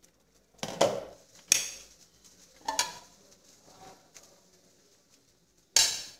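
A metal fork clinking and knocking against a stainless steel cooking pot, several separate sharp knocks with a short ring: two close together about a second in, another about a second later, and one more near the end.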